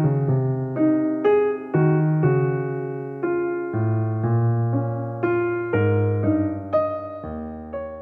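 Background music: a soft piano melody over chords, each note struck and fading, with a new note or chord about every half second over deep bass notes.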